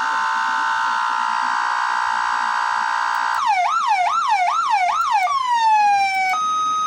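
SER840 electronic siren switching through its tones. A steady chord-like tone is followed, about three seconds in, by a run of five quick falling sweeps, then one long slow falling glide and a short steady beep.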